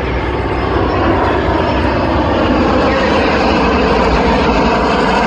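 Steady, loud engine noise of a four-plane formation passing overhead: two EA-18G Growler jets flying with two Vought F4U Corsair propeller fighters, whose radial piston engines are Pratt & Whitney R-2800s.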